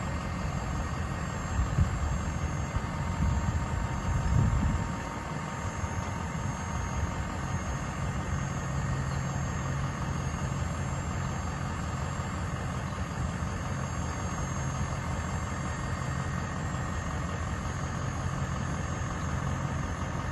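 A 2005 Chevrolet C4500 dump truck's engine idling steadily while the raised dump body is let down.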